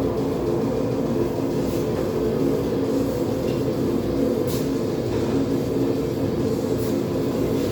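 Propane forge burner running with a steady low rumble, with a few faint high clicks over it.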